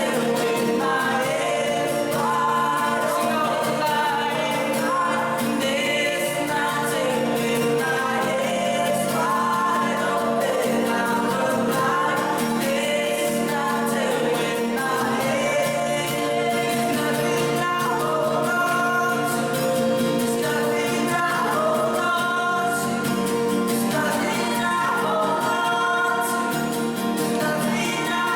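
Group singing of a gospel hymn or worship song, with several voices together over steady sustained accompaniment.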